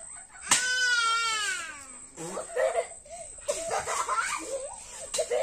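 A young child's high-pitched cry, starting sharply about half a second in and falling in pitch over about a second and a half, followed by children's voices chattering and squealing.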